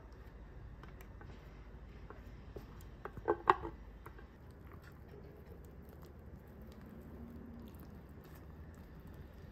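Faint, sticky sounds of caramelized banana being scraped from a metal container into muffin batter in a glass bowl, with a quick cluster of metal clicks on the container about three and a half seconds in. Near the end a spatula begins folding the wet mixture.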